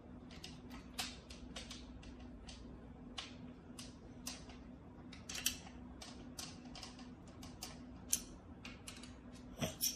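Irregular sharp clicks and light knocks from the SX-10 slingshot's grip and stock assembly being handled and turned over, the loudest two close together near the end. A steady faint hum runs underneath.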